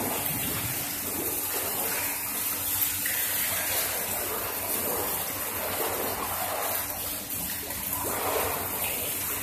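Pool water splashing and sloshing from a swimmer's strokes, over the steady splash of a stone-wall spout pouring water into the pool.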